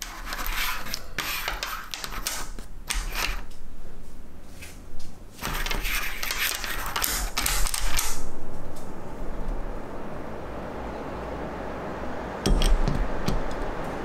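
Teaware and a trivet handled on a tabletop: scratchy clattering and clicks for the first several seconds. A steady hiss follows, and a glass teapot is set down on the trivet near the end with a sharp knock.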